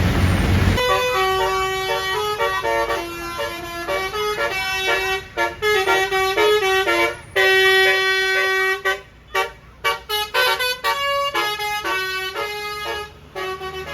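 Basuri multi-tone bus air horn playing a 'telolet' melody: a run of loud held notes stepping from pitch to pitch, with short breaks between phrases. It starts about a second in, after a brief rushing noise, and stops shortly before the end.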